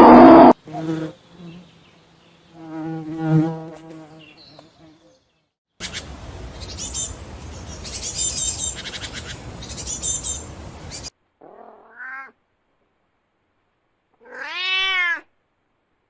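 A run of animal calls: a loud call cuts off about half a second in, then fainter calls, a stretch of high chirping over a noisy background, and near the end a cat meowing twice.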